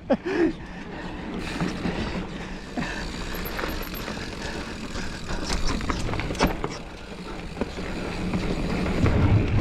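Giant Fathom mountain bike being ridden over a rough dirt trail: steady tyre and wind noise on the camera, with a few sharp knocks and rattles from the bike over bumps about halfway through.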